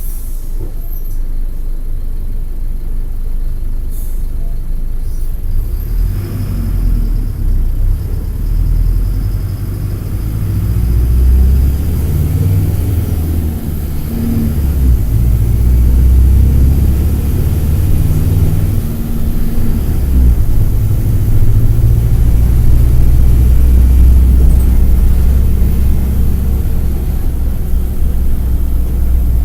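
Mercedes-Benz OM-924 LA four-cylinder turbodiesel of an OF-1722M articulated bus pulling under load, heard from on board; engine speed rises and shifts several times, and it runs louder through the second half.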